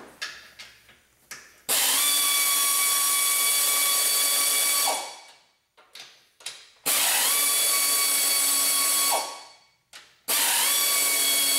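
Hand-held power tool spinning bolts out of a BMW M62 V8's intake manifold in three runs of two to three seconds each. Each run spins up to a steady whine and winds down with a falling pitch, and there are a few light clicks in the pauses between runs.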